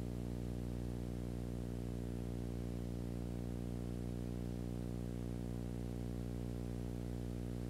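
A steady low hum made of several layered pitches, holding unchanged throughout, over a faint hiss.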